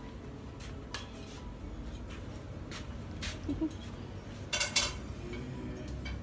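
Kitchen clatter as food is prepared at a counter: utensils and dishes knocking and clinking, a few scattered clicks with two sharper knocks about four and a half seconds in, over a steady low hum.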